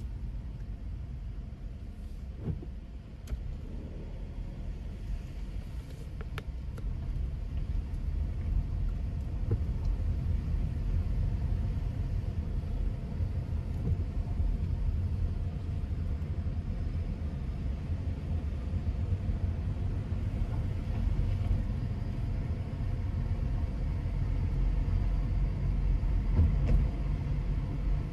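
Low, steady road and engine rumble heard from inside a car's cabin as it drives down a parking-garage ramp, growing louder about eight seconds in.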